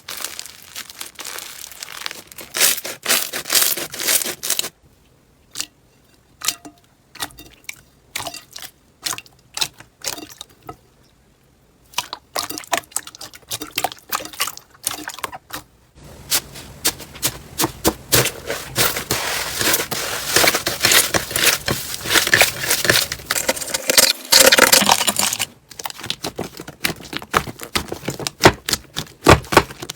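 Slime being squished and worked by hand, making sticky clicking and crackling pops. The clicks are sparse and separate from about five to sixteen seconds in, then come thick and fast as crinkly crackling.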